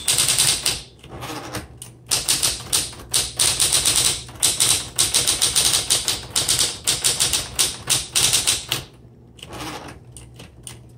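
Smith Corona Electra 110 electric typewriter being typed on quickly: a fast run of sharp key strikes over the steady hum of its motor, with a brief pause about a second in. The typing stops about nine seconds in.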